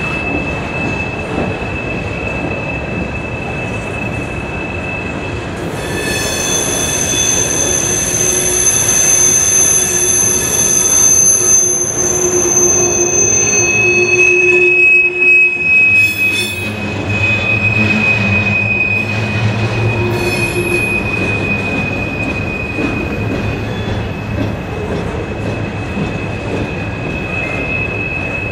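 Freight car wheels squealing against the rail as the train rolls through a curve: a steady high-pitched squeal throughout, with further, higher squeals joining from about six seconds in until about fourteen seconds, then a deeper rumble of the cars from about sixteen seconds.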